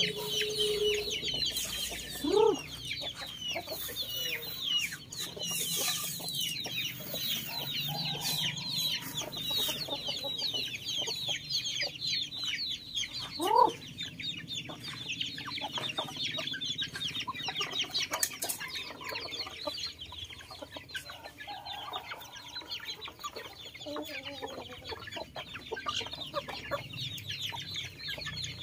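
A flock of young chickens peeping continuously in a high chorus of short calls, with two louder short calls from the flock, about two and a half seconds in and again about thirteen seconds in.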